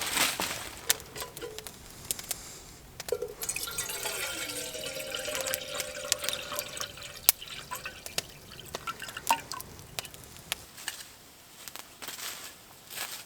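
Liquid being poured into a container, starting about three seconds in and trailing off after about five seconds, with scattered clicks and knocks of handling.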